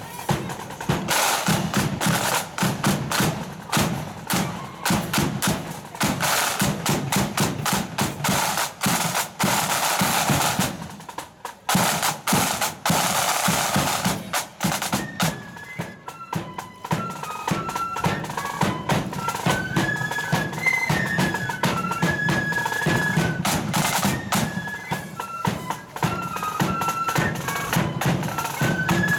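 Marching flute band playing: a rank of snare drummers beating out fast rolls and patterns, briefly dropping back about eleven seconds in, then the flutes come in with a high melody over the drums for the second half.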